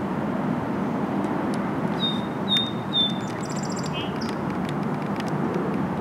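A song sparrow sings one song about two seconds in: three clear repeated notes, then a buzz and a quick jumble of trills and higher notes. Under it is the steady rush of creek water.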